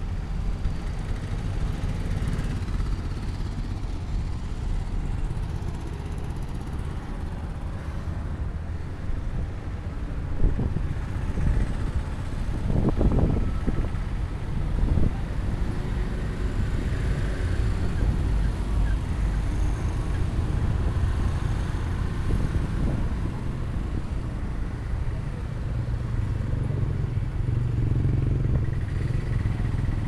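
Road traffic passing: a steady rumble of cars and motorcycles going by, with a louder vehicle passing about halfway through.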